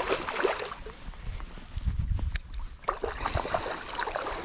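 A hooked trout thrashing at the surface of a shallow river, making irregular splashes over the flowing water as it is played on a fly line.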